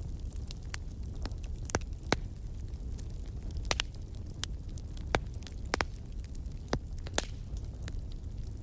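Bonfire burning: a steady low rumble of flames with irregular sharp pops and crackles from the burning wood, a few of them louder than the rest.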